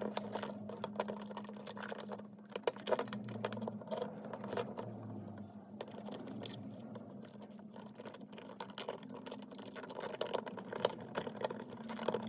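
Irregular clicks and scrapes of stiff electrical wires and a dimmer switch being pushed and handled into a wall junction box, over a faint steady low hum.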